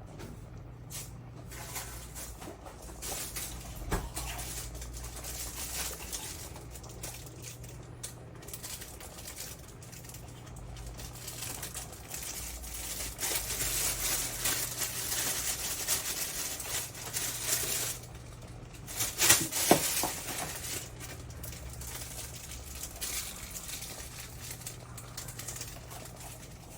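Kitchen handling sounds: dishes and utensils clinking and scraping, with sharp clicks about 4 seconds in and a louder cluster about 19 to 20 seconds in, over a steady low hum.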